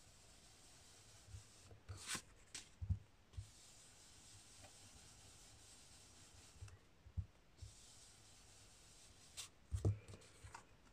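Round ink-blending brush rubbed over cardstock in soft, faint swishing strokes, laying blue ink into the corners of the panel. A few light taps and knocks on the craft mat come with it, the clearest about two seconds in and near the end.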